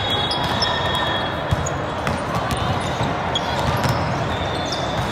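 Volleyballs being hit and bouncing during play in a large, echoing hall, heard as scattered sharp knocks over a steady din of many distant voices.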